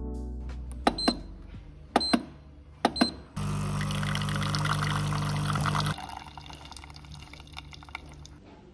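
Super-automatic espresso machine: three short ringing clicks about a second apart, then its pump runs with a loud steady buzzing hum for about two and a half seconds while coffee streams into a glass of milk. It stops abruptly and leaves a quieter hiss and dribble.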